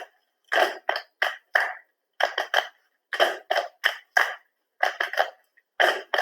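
Body percussion: short, sharp hand claps and slaps played in a repeating rhythm, groups of three to five quick strikes with brief gaps between them, in a small room.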